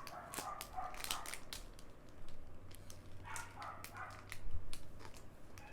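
Plastic packaging crinkling and clicking as a bagged squishy toy is handled, with dogs barking in the background a couple of times.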